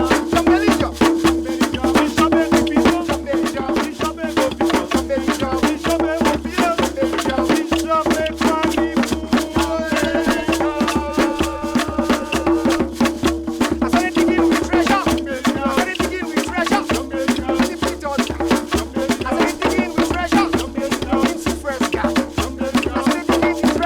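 Music with a fast, steady percussion beat over a held low note, with a melody line coming forward about ten seconds in.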